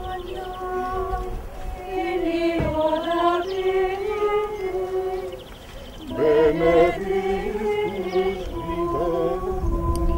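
A small group of voices singing a slow liturgical chant. It pauses briefly about halfway and resumes louder about six seconds in.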